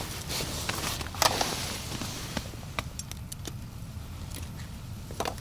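Scattered sharp clicks and crackles, a louder one about a second in and a few together near the end, from hands working a tip-up's line and the ice at a fishing hole while a pike is pulled in.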